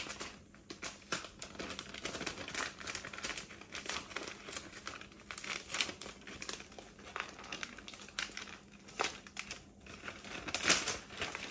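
Gift wrap crinkling and rustling as a present is unwrapped by hand, in a run of irregular crackles that grows loudest near the end.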